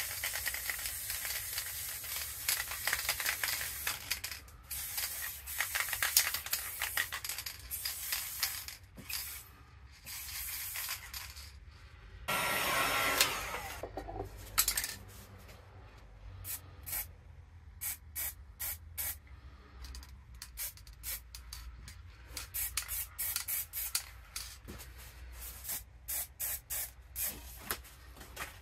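Aerosol spray paint can hissing in many short puffs, with one longer continuous spray about twelve seconds in.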